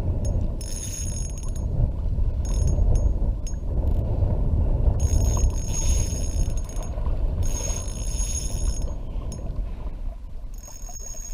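Spinning reel being cranked in short spurts, its gears giving a high whine for a second or two at a time, as a small jig is worked back on light line. A steady low rumble of wind on the microphone runs under it.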